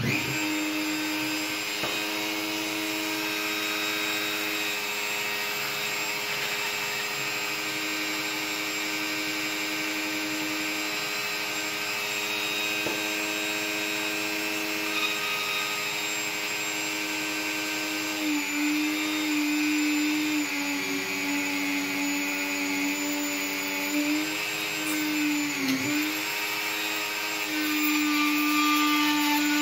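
Dremel rotary tool running steadily at high speed, spinning a brass lock key pin that is being drilled hollow with a small hand-held pin-vise bit. The motor's whine dips in pitch a few times in the second half.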